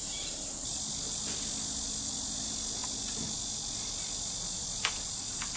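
Steady high-pitched drone of a summer insect chorus, growing a little louder under a second in. A faint click near the end.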